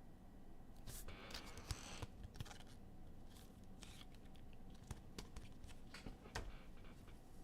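Faint handling of trading cards and their foil pack wrappers: scattered light clicks and flicks, with a short crinkling rustle about a second in, as of a pack being torn open.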